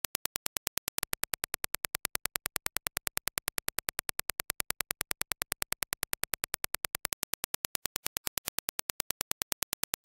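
Dirac impulse test signal: a steady train of sharp clicks, about ten a second. It is heard both as the clean reference impulse and as reproduced through HIFIMAN Arya open-back planar-magnetic headphones, to judge their transient speed.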